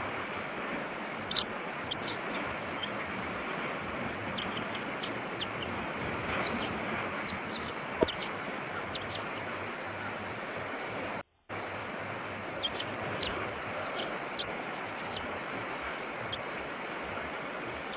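Bald eaglet being fed, giving short, high peeps scattered throughout over a steady rush of wind and surf on the nest-cam microphone. A single sharp tick comes about 8 seconds in, and the sound cuts out for a moment about two-thirds of the way through.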